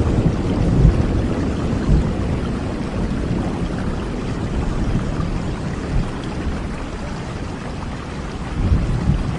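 Steady rain with low rolling thunder. The rumble fades over the first few seconds and swells again briefly near the end.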